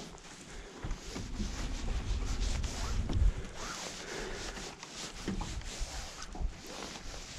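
Irregular rubbing and scraping handling noise, with a low rumble, as of wind buffeting the microphone, loudest about one to three seconds in.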